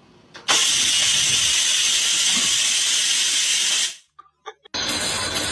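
A loud, steady hiss of rushing noise starts about half a second in and cuts off abruptly at about four seconds. After a brief pause another noisy stretch begins near the end.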